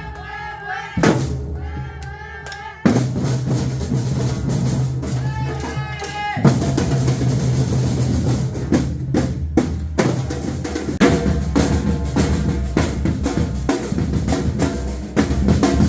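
Batucada drum ensemble playing: deep surdo bass drums with snare and other hand drums on a dense, fast rhythm. The sound fills out about three seconds in and again around six seconds in.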